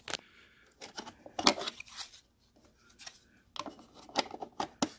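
Cover plate being fitted by hand onto the case of a Magnum inverter/charger: a run of light clicks, taps and scraping of the plate against the housing, busiest about a second and a half in and again near the end.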